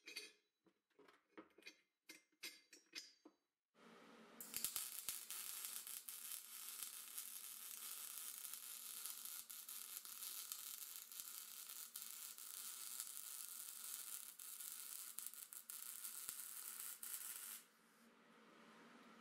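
A few light clinks of small steel parts being handled, then about 14 seconds of steady crackling, sizzling arc welding as a steel tab is welded onto square steel tube. The welding stops near the end.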